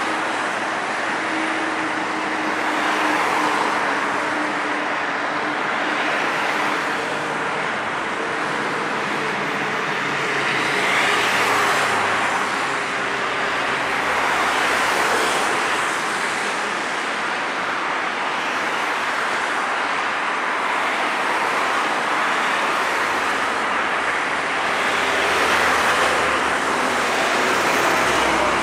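Boeing 737-800's CFM56-7B jet engines running at low power as the airliner rolls out on the runway after landing: a steady rushing roar that swells and eases every few seconds, with a low hum that fades out in the first ten seconds.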